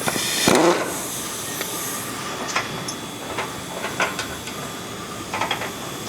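Light, irregular clicks and taps of a bolt and hand tools being worked on a pickup's front bumper mount, over a steady hiss. A short loud rush of noise comes at the very start.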